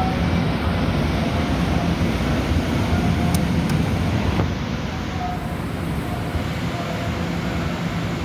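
Steady rumble and hum of an underground railway platform, with a train running nearby. Two short clicks come about three seconds in, and the noise drops a little just after halfway.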